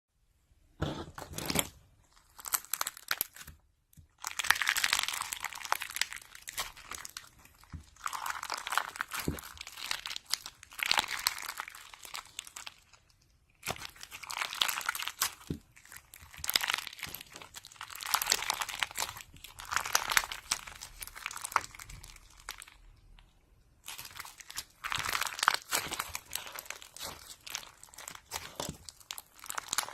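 Slime being squeezed and worked by hand, crackling with many small pops and clicks in bouts of a few seconds, with short pauses between.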